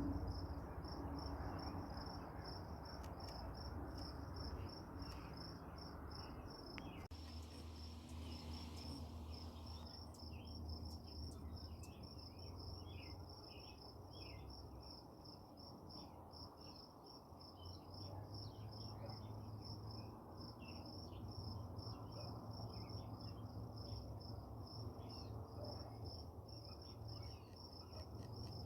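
Crickets chirping in a steady, rapidly pulsing high trill, with scattered short chirps and a low hum underneath.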